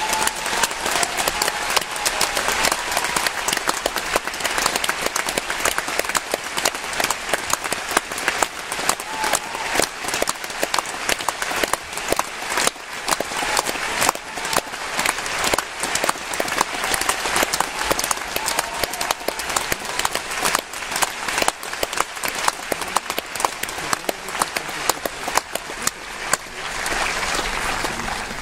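Large concert-hall audience applauding, a dense steady clapping that thins out near the end.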